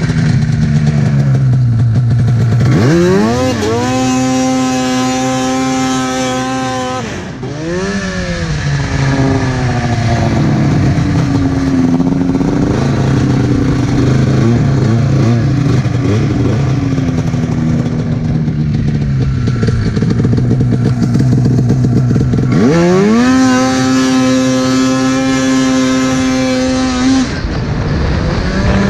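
Arctic Cat F7 snowmobile's two-stroke twin, fitted with a D&D aftermarket pipe and a Jaws can, opened up twice under load. Each time the revs climb quickly and hold at a high steady pitch for about four seconds, then drop back to lower, varying revs in between.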